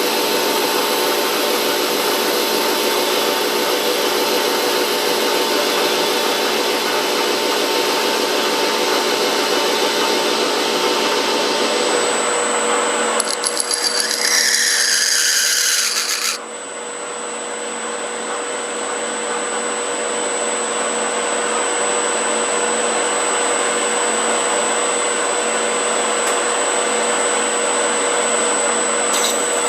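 Metal lathe running and turning a workpiece: a steady machine whine under a noisy cutting sound. About halfway through there are a few seconds of harsher scraping with a wavering squeal, then the sound drops suddenly and slowly builds back up.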